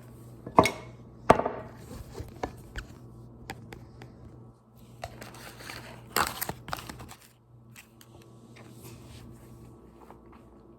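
Mouth sounds of someone sucking a LemonHeads hard candy: sharp clicks of the candy against the teeth, loudest twice in the first second and a half, then scattered smaller ticks and a short breathy rustle around six seconds in.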